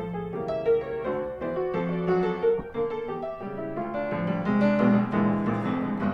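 Background piano music: a light melody of short notes over held lower notes.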